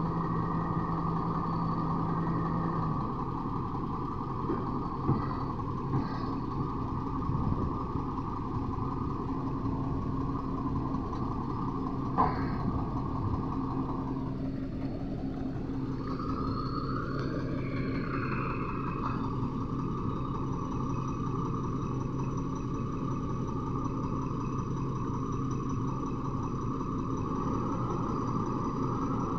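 Heavy diesel engine idling steadily, with a few sharp knocks. Partway through, its note dips and then rises again for a few seconds before settling back to a steady idle.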